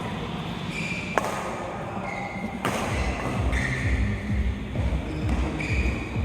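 Two sharp clicks of snooker balls being struck, about a second and a half apart, the first the louder, over a steady low background din.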